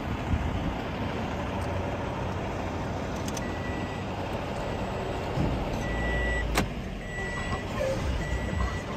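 Truck and car engines running in a parking lot, a steady low rumble. Over it, a high beep sounds in pieces about half a second long, repeating through the second half, with one sharp click about two-thirds of the way in.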